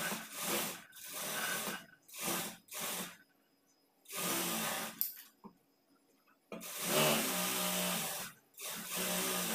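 Sewing machine running in several short stop-start runs as a sleeve is stitched into a blouse armhole, with brief pauses while the fabric is repositioned.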